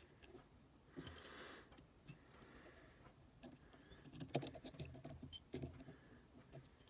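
Faint scattered clicks and light taps of small tools and iPhone parts being handled during reassembly, with a brief cluster of louder clicks about four seconds in.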